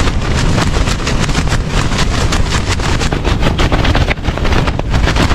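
Gale-force wind hitting the microphone: a loud, continuous low rumble broken by rapid crackling buffets.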